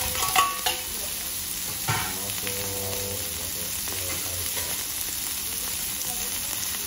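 Pork belly and shredded cabbage sizzling steadily on a hot teppan griddle, with a couple of sharp metal clanks from the tray and spatula in the first second.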